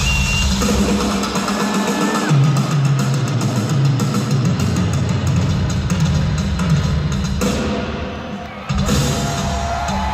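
Rock band playing live at full volume, heavy on the drums, with sustained guitar notes; the sound thins for a moment about eight seconds in, then the full band comes back.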